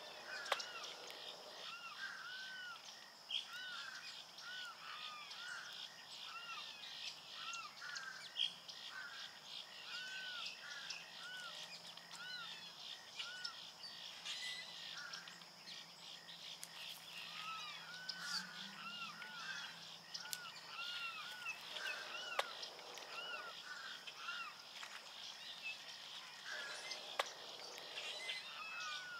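Wild birds calling in the background: many short rising-and-falling chirps repeating throughout, over a steady high hiss, with a faint low hum in the middle.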